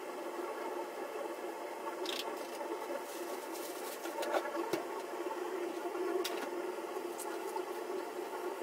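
Steady kitchen-appliance hum from a motor running with a fixed pitch. Several short clicks and knocks of cooking work come through over it, the loudest a sharp knock a little before the halfway point.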